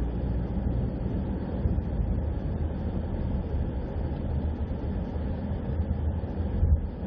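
A vehicle moving along a road, giving a steady low rumble of engine and road noise.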